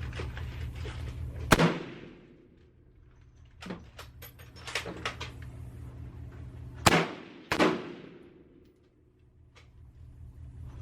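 Three gunshots, each with a short echoing tail: one about a second and a half in, then two more close together about seven seconds in. Fainter clicks and knocks fall between them.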